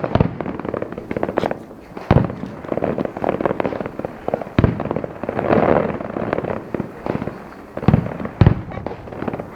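Aerial fireworks bursting: deep booms every couple of seconds, two in quick succession near the end, over continuous crackling.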